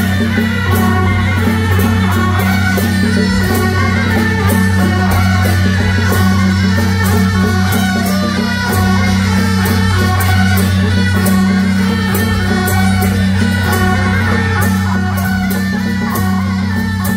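Beiguan ensemble playing: shrill reed horns carry a wavering melody over a steady beat of gongs and cymbals. A constant loud low hum runs underneath.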